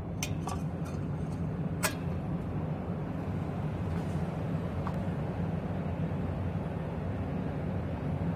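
A few light clicks and taps in the first two seconds as a wet, wire-hung 3D-printed part is set down on a plastic cutting mat, over a steady low hum.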